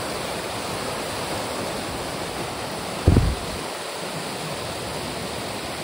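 Mountain stream rushing and splashing over boulders, a steady even rush of white water. A single dull low thump sounds about three seconds in.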